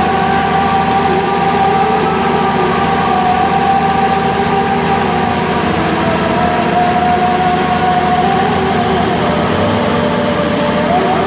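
Vehicle engines running: a steady low drone with a held, slightly wavering higher tone over it.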